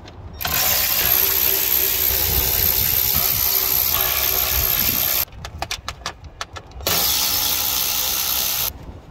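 Cordless electric ratchet running in two bursts, one of about five seconds and one of about two, backing out 7mm screws from a dashboard trim frame. A few sharp clicks come between the two runs.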